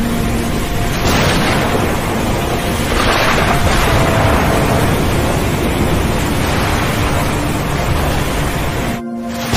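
Stormy sea ambience: a steady loud rush of wind and waves, swelling with breaking surf about a second in and again about three seconds in, over a few faint held musical tones. The rush drops out for a moment just before the end.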